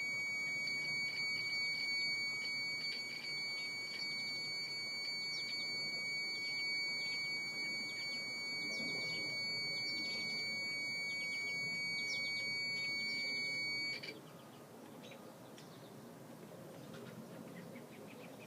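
A battery backup sump pump's alarm sounds one steady, high-pitched tone, then cuts off abruptly about three-quarters of the way through. Faint bird chirps are heard underneath.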